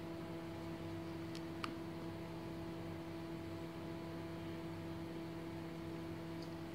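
Steady low hum with a faint hiss: room tone, with two faint clicks about a second and a half in.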